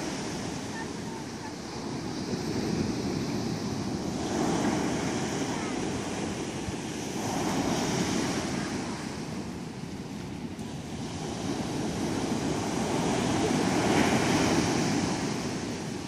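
Ocean surf breaking and washing up a sandy beach: a steady rush of water that swells louder three times as waves break, about four, eight and fourteen seconds in.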